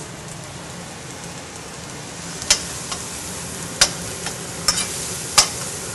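Diced vegetables (red onion, red bell pepper, asparagus) sizzling steadily in a hot wok as they soften, stirred with a slotted metal spatula. From about two and a half seconds in, the spatula clicks sharply against the pan four or five times.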